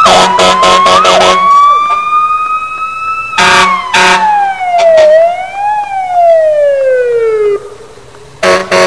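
Police siren on a slow wail: the tone rises gradually, falls, rises briefly again and sinks away before stopping. Short harsh horn-like blasts sound over it in a rapid string just after it starts, twice about midway, and twice more near the end.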